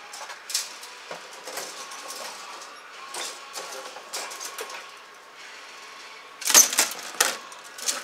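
Hard plastic model-kit runners clicking and clattering against each other as they are handled and set down, with a louder burst of clatter about six and a half seconds in.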